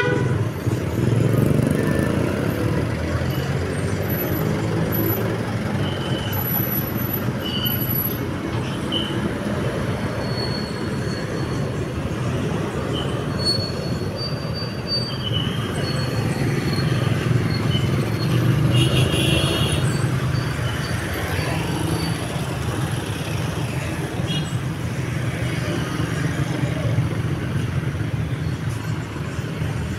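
Steady low rumble of road vehicles and traffic noise, with a few faint short high tones here and there.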